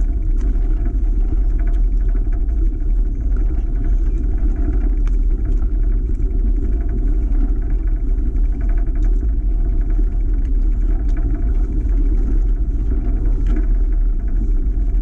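Bicycle rolling over a wooden plank boardwalk: a steady low rumble from the tyres running over the boards, with faint scattered clicks.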